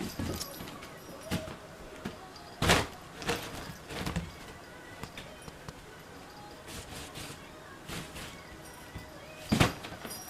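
Thumps and knocks of a kitten pouncing and scrambling in a fabric cat tunnel, with two sharp loud knocks, one about three seconds in and one near the end, and softer ones between.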